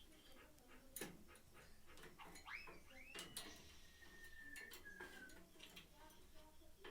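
Faint parrot calls: a couple of short arching whistles, then one long, nearly level whistle that dips slightly at its end, among scattered sharp clicks.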